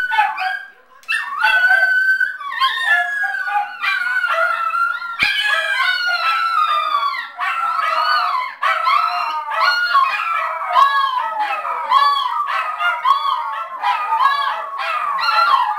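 Several small dogs, poodles among them, howling together in overlapping wavering voices. The howling swells about a second in and later breaks into shorter rising-and-falling cries.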